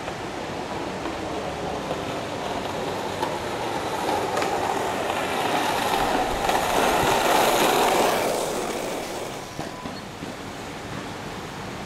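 Skateboard wheels rolling on street asphalt, the rolling noise growing louder as the board approaches and then dropping off quickly once it has passed.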